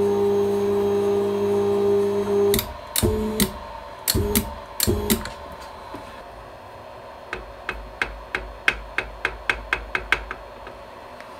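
Drill press knee's motor drive running with a steady whine for about two and a half seconds as it moves the knee, then three short jogs of it. From about seven seconds in, a run of about a dozen light taps, coming quicker, as a hand knocks at the aluminium DRO scale body.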